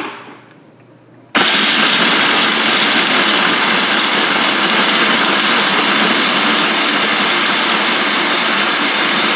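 Food processor switched on about a second and a half in, then running steadily at full speed, its blade chopping whole pecans, pistachios and pitted dates into a coarse mixture.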